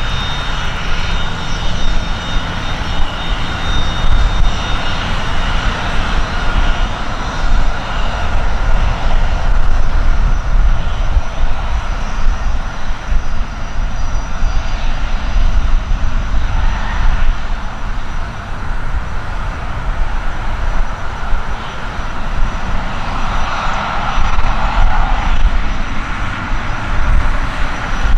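Dassault Falcon 20F business jet with General Electric CF700 turbofans, running at low power while it taxis on the runway. A deep, steady jet rumble carries a thin high whine that fades within the first few seconds. The jet noise swells about 23 seconds in as the tail-mounted engines turn toward the listener.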